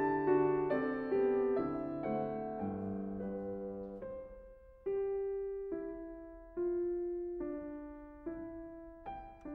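Gentle piano music. It is busy with overlapping notes for the first few seconds, then slows to single notes a little under a second apart, each one fading away.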